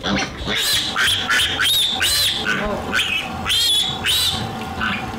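Young piglet squealing over and over as it is held and washed, a rapid series of short, high-pitched squeals that rise and fall.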